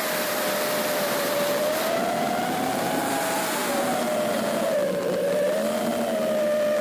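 FPV quadcopter's motors and propellers whining steadily, the pitch drifting up and down with throttle, over a rushing hiss of air.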